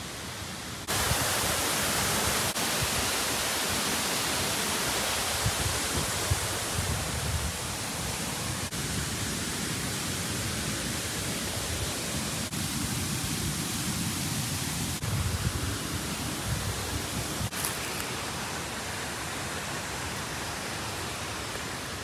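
Steady rush of flowing water, a loud even hiss with no pauses, stepping up sharply about a second in and holding steady after that.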